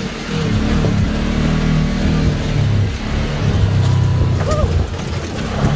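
Rented ATV's engine running under way, its pitch rising and falling as the throttle changes.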